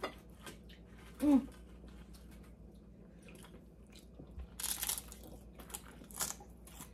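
Mouth-close chewing and crunching of corn tortilla chips (nachos), with a few louder sharp crunches near the end. A short hummed 'mm' about a second in.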